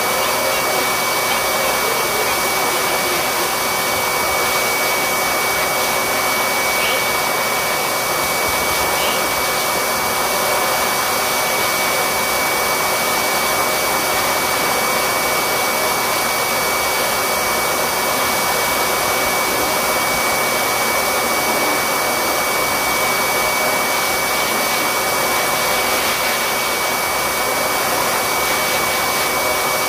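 An electric blower motor running steadily: a loud, even rush of air with a thin, constant high whine.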